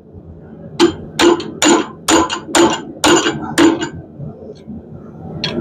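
Hand hammer striking hot steel about eight times in quick succession, roughly two and a half blows a second, each with a short metallic ring. The blows close a hot bar around a round bending jig held in a vise, forming a hook's loop.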